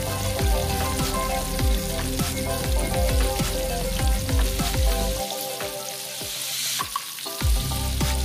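Batter-coated eggplant strips frying in hot oil: a steady sizzle full of small crackling pops, over background music.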